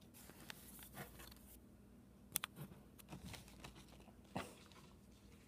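Faint handling noise as small shark teeth are picked up off a sheet of notebook paper: light rustling, then a few sharp clicks, the loudest about two and a half seconds in.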